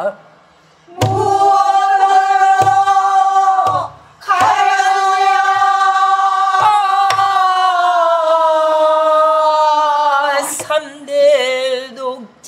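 A woman singing pansori, holding long, slowly falling notes on a drawn-out vowel while she strikes a buk barrel drum under the voice about seven times. The voice stops briefly just after the start and again near four seconds, and near the end it breaks into shorter wavering phrases.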